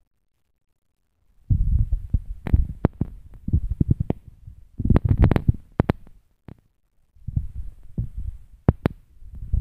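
Irregular low thumps and crackles in uneven clusters, starting about a second and a half in: handling or rubbing noise on the microphone of a phone filming a TV screen, with no clear programme sound.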